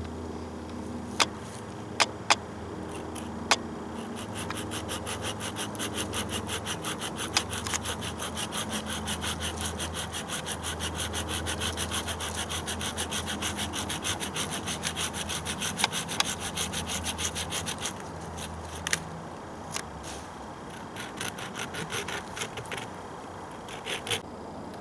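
Hand saw cutting through a dry wooden pole in quick, even back-and-forth strokes from about four seconds in to about eighteen seconds, after a few sharp knocks. A shorter, lighter bout of sawing comes near the end.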